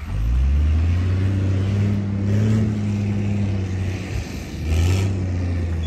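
Walnut tree shaker running: a loud, steady low engine hum that starts abruptly, dips briefly about four seconds in and picks up again as the machine shakes the nuts down from the trees.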